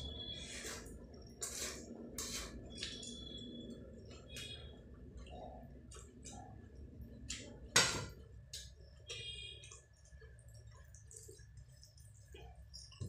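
Stainless-steel dishes clinking as a small steel bowl of curry gravy is poured over rice and set back down, with one sharp loud clink about eight seconds in. Small clicks and wet sounds of eating rice by hand and chewing fill the rest.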